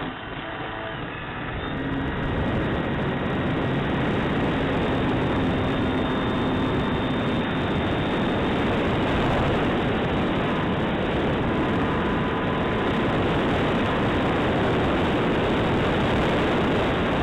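Radio-controlled model airplane's motor and propeller running at full power, heard from a camera on board during takeoff and climb. The sound gets louder over the first two seconds, then holds as a loud, even rush of propeller and air noise.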